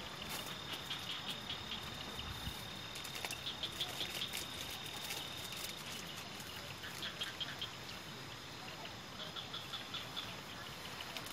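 Night insects calling: a steady high trill through about the first half, with repeated short chirping phrases throughout, over a steady light patter of rain.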